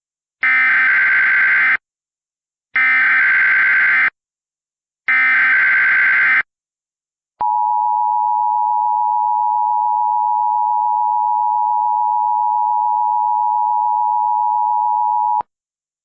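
Emergency Alert System SAME header: three bursts of shrill, warbling data tones, each a little over a second long, then the EAS attention signal, a steady two-tone sound held for about eight seconds that cuts off sharply. Together they mark the start of an Earthquake Warning broadcast.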